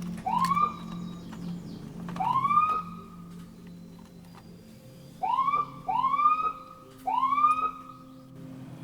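An emergency siren giving five short whoops, each rising then falling in pitch: two spaced about two seconds apart, then three in quicker succession, over a faint steady low hum.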